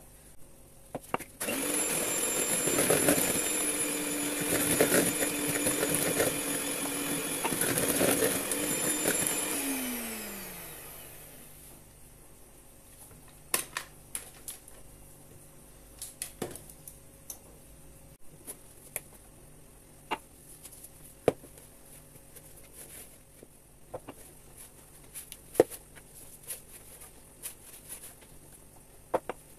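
Electric hand mixer running steadily for about eight seconds as it beats flour into a cake batter, then switched off and spinning down with a falling whine. Scattered light taps and knocks follow.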